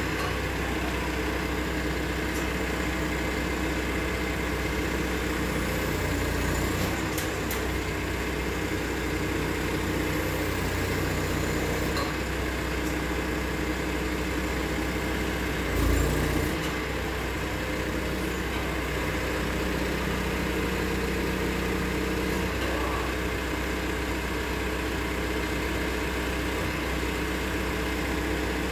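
Telehandler's diesel engine running steadily at idle while it holds and positions a suspended concrete catch basin, with one brief louder bump about halfway through.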